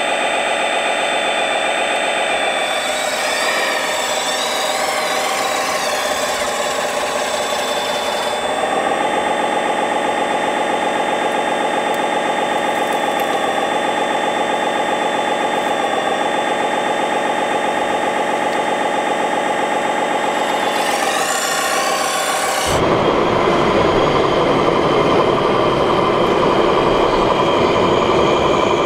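Electric hydraulic pump of a 1/14 Lesu ET30H RC wheeled excavator whining steadily under an engine-like hum, its pitch rising and falling as the arm and bucket work. About 23 s in the sound switches suddenly to a louder, rougher engine-like rumble.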